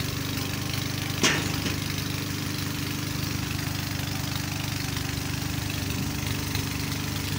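Diesel engine of heavy construction machinery idling steadily, with a single sharp knock about a second in.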